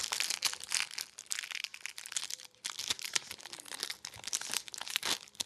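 Foil O-Pee-Chee hockey card pack wrapper being crinkled and torn open by hand: a run of crackling with a brief pause about halfway through.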